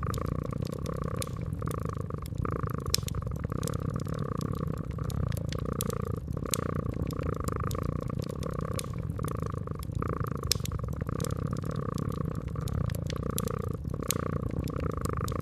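A cat purring steadily, swelling and easing in a slow rhythm, over the crackle of a wood fire with frequent sharp pops.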